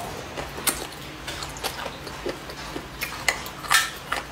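Close-up chewing of a mouthful of boneless chicken feet, with a handful of sharp clicks spread through it from the mouth and from chopsticks against the bowl.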